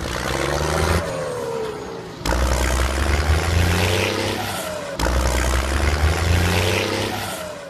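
Engine revving sound effect laid over the footage as a string of spliced clips that cut in abruptly one after another. It has a low rumble and short falling whines.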